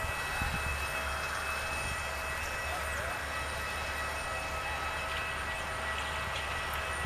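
Distant Airbus A319 airliner's twin jet engines at low thrust as the aircraft rolls along the runway: a steady high whine of several held tones over a constant low rumble.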